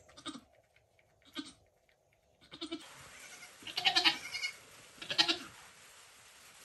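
Goat bleating: about five short bleats spaced a second or so apart, the loudest about four and five seconds in.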